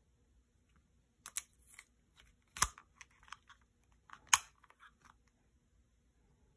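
A compact air pistol's magazine being handled and pushed into the grip: three sharp metal clicks about a second and a half apart with small ticks between, the loudest near the end as the magazine seats.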